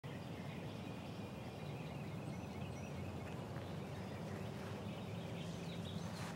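Outdoor yard ambience: a steady low background hum with faint, scattered bird chirps, and a brief click near the end.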